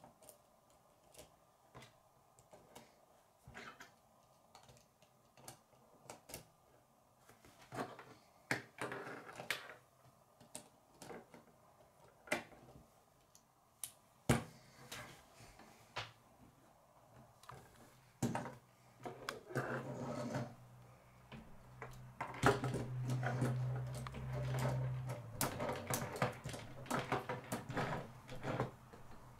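K'nex plastic rods and connectors clicking and snapping together as pieces are handled and fitted onto a model. The clicks are sparse at first and come thick and fast in the second half, with a low hum for a few seconds there.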